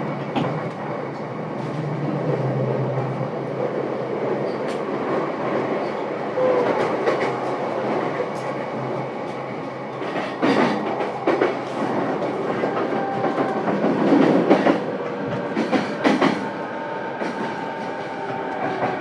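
Running noise heard inside a JR East E233-7000 series Saikyo Line motor car (MoHa E233-7221) travelling between stations: a steady rumble of wheels and running gear with a low motor hum. Several sharp wheel clacks come between about ten and sixteen seconds in.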